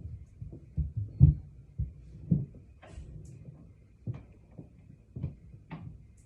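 Irregular muffled thumps and knocks, about a dozen in six seconds, the loudest a little over a second in, with a few sharper clicks in the second half.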